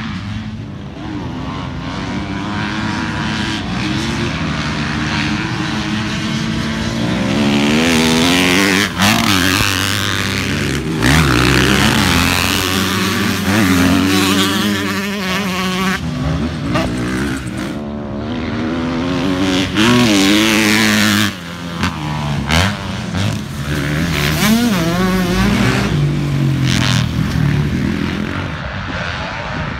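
Several motocross dirt bikes racing around the track, their engines revving hard, the pitch climbing and dropping over and over as riders open and close the throttle through corners and jumps.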